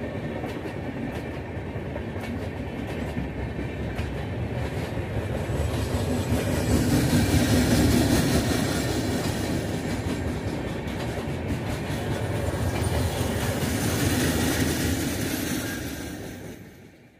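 Passenger coaches of an Indian Railways express train rolling past on the track: a steady wheel-on-rail rumble with the clickety-clack of wheels over rail joints. It swells toward the middle and dies away near the end as the last coach goes by.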